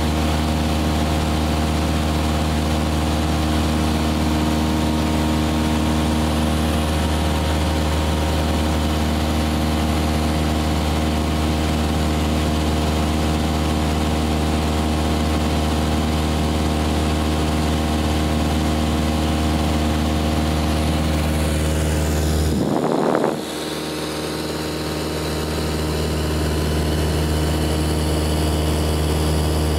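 Steady drone of a single-engine Cessna's piston engine and propeller in cruise, heard from inside the cabin. About two-thirds of the way through there is a brief rubbing disturbance as the camera is moved. The drone then dips suddenly and builds back up over a few seconds.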